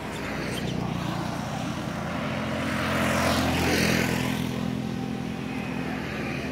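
A motor vehicle passing, its engine hum swelling to its loudest about halfway through and then easing off.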